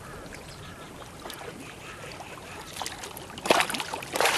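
Faint background, then about three and a half seconds in, sudden loud splashing as a 45-pound giant Siamese carp thrashes in the water.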